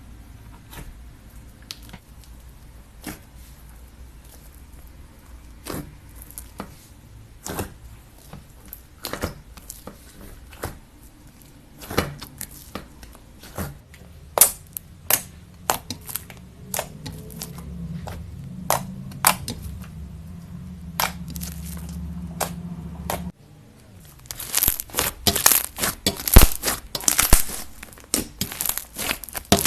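Slime being handled, giving scattered sharp sticky clicks and pops. After a cut about 23 seconds in, the clicks turn into dense, louder crackling.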